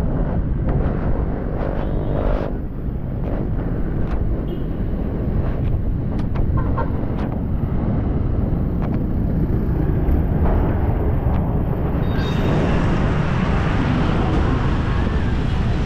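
Wind rumbling on the microphone while riding a bicycle along a road, with motor traffic around and a few light clicks.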